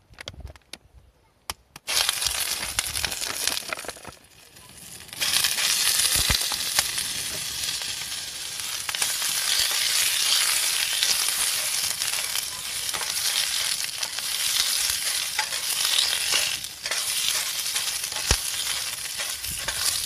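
Sausages frying in a hot stainless-steel frying pan over a wood fire, a steady loud sizzle. The sizzle starts about two seconds in, drops briefly, and swells again from about five seconds.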